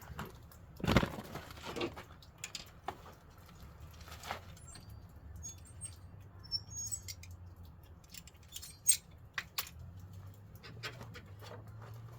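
Scattered clicks, taps and light rattles of small parts and hand tools being handled while vacuum hose and fittings are worked on, over a faint steady low hum. The sharpest knocks come about a second in and again near the nine-second mark.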